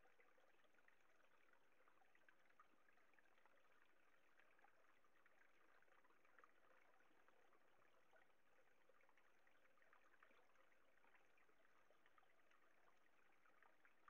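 Faint, steady trickling and swishing of water as a gold pan is swirled in a shallow stream, washing sediment out of the pan during gold panning.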